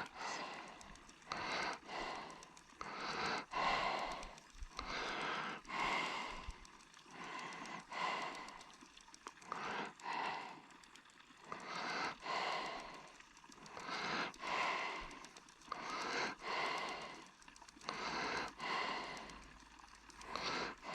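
A person breathing close to the microphone: slow, even, breathy swells about every two seconds, with a few faint clicks in between.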